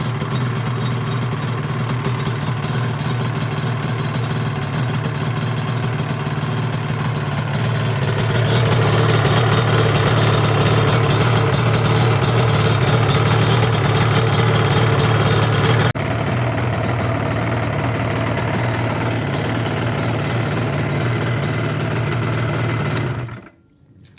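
Yamaha RD350 YPVS two-stroke twin engine running steadily. It gets louder about a third of the way in, drops back suddenly a little past halfway, and stops abruptly near the end. This is its first run after the barrel and head were refitted.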